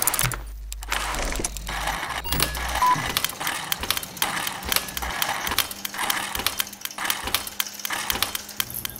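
Mechanical sound effects for an animated gear-machine intro: rapid clicking, ratcheting and clanking of gears and levers, with a low hum for the first few seconds and a short beep about three seconds in.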